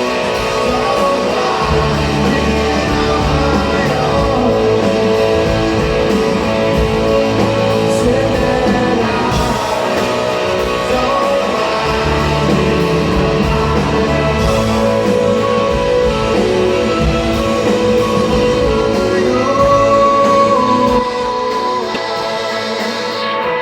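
Live rock band playing a song in a large hall: guitars and a sung vocal line.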